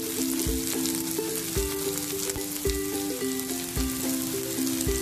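Chopped onions, curry leaves and coriander sizzling as they fry in hot oil in a kadai, heard over background music with a melody and a regular beat.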